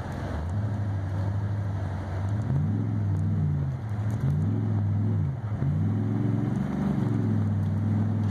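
A vehicle's engine, heard from inside the cab, revving up and falling back about three times as it drives a rough back track, over a steady rumble of tyres and road noise.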